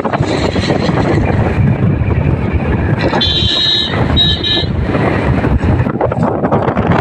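Wind buffeting the microphone over the steady rumble of a moving vehicle. A brief high-pitched tone sounds twice, about three seconds in.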